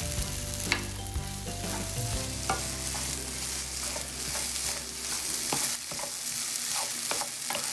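Rice noodles and shrimp sizzling in an oiled frying pan, stirred with a utensil that clicks and knocks against the pan now and then.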